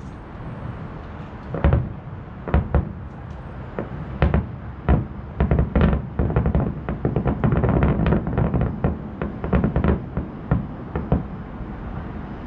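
Aerial fireworks shells bursting: separate sharp bangs at first, then a rapid run of many bangs over a continuous rumble about halfway through, thinning to a few bangs near the end.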